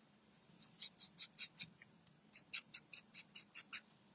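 Marker tip scratching across paper in quick back-and-forth colouring strokes: a run of about six strokes, then after a short pause a run of about eight, some five strokes a second.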